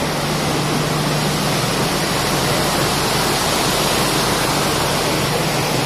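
Cooling tower running: a loud, steady rush of water falling through the fill behind the air-inlet louvers, with a steady low hum underneath.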